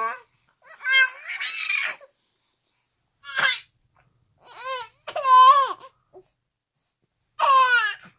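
Baby cooing and squealing happily in about five short bursts, with pauses between them.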